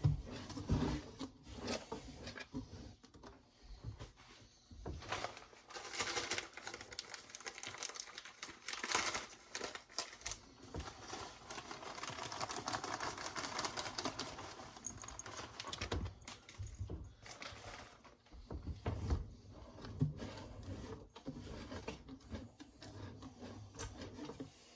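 Loose substrate and dry leaf litter being handled and spread by hand in a reptile enclosure: irregular crinkling, rustling and pattering with scattered clicks, densest for several seconds in the middle.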